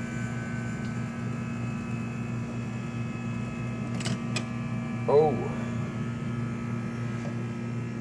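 Self-serve soft-serve frozen yogurt machine running with a steady low hum while it dispenses into a cup. Two light clicks come a little after four seconds in.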